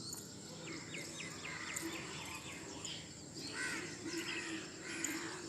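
Faint bird calls, a series of short chirps and some crow-like caws, over quiet background noise.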